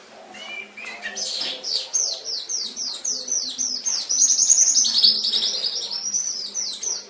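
Domestic canary singing one long phrase: high notes that sweep downward in pitch, repeated a few times a second, then a faster, louder run of notes in the middle. The song stops abruptly near the end.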